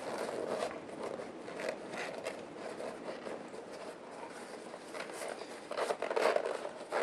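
Hands working a foam insert into a rubber tire, with soft rubbing, rustling and scraping of rubber and foam. There is a louder flurry about six seconds in.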